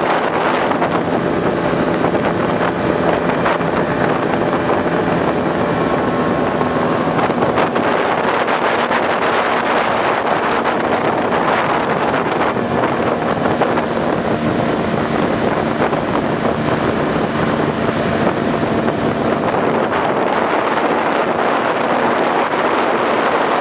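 Outboard motor running steadily at planing speed, with wind on the microphone and water rushing past the hull.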